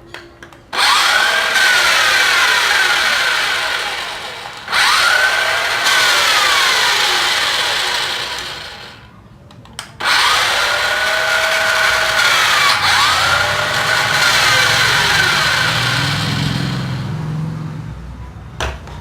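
Toy remote-control stunt car's electric drive motors and gears whirring loudly in four long runs, the pitch climbing and then falling in each as the motors speed up and slow down, with a short pause about nine seconds in.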